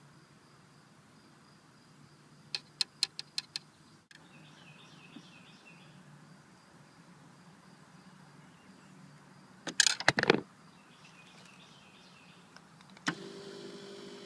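Six sharp clicks, a louder burst of clicking and rattling about ten seconds in, then the power seat's electric motor starts running steadily near the end.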